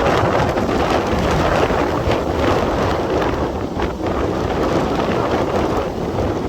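Strong wind gusting and buffeting the microphone: a loud, steady rushing noise with a heavy low rumble that swells and eases slightly.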